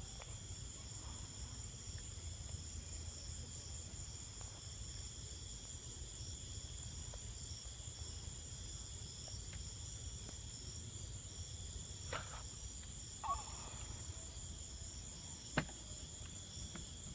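Steady chorus of insects, crickets by the sound tags, holding several constant high-pitched tones over a low background rumble. A few faint short knocks come about twelve seconds in and again near the end.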